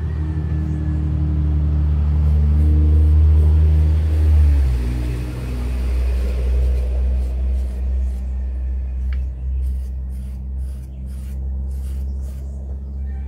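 An engine running loud and low, its pitch stepping down about four and a half seconds in and then holding steady at the lower speed.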